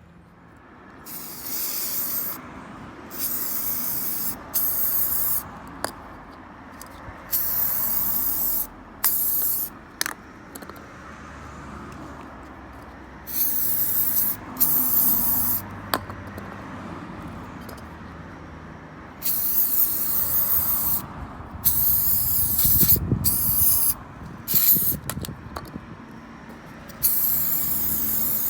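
Aerosol spray can being sprayed onto the stabilizer bushes in a dozen or so short bursts of hiss, with a few sharp clicks in between. It is lubricant going on as the quick fix for the squeaking bushes.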